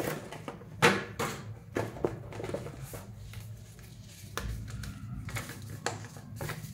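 Product packaging being handled and opened by hand: scattered clicks, knocks and rustles, the sharpest about a second in.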